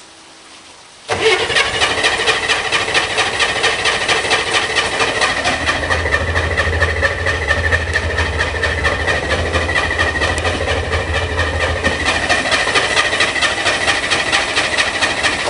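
Corvair Spyder's air-cooled flat-six being cranked by its starter, turning over with a fast even beat for about fourteen seconds without catching. This is a cold no-start, which the owner puts down to flooding with the choke closed.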